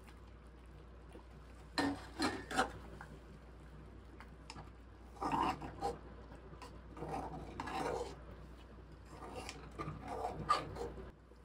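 A long metal spoon scraping and stirring thick haleem in an aluminium pot, in four short bouts of rasping.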